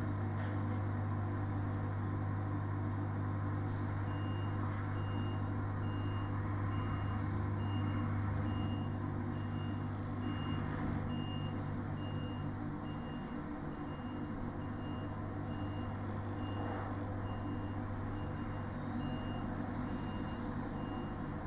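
Lorry diesel engine and refrigeration unit running with a steady low drone. From about four seconds in, a reversing alarm beeps about twice a second over it.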